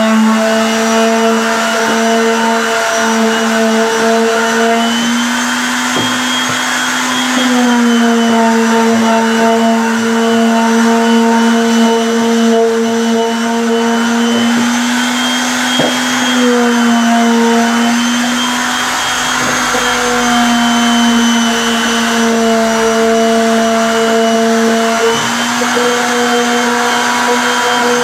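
Electric orbital palm sander running continuously on a wooden box panel, a steady motor hum that dips slightly in pitch and recovers a few times.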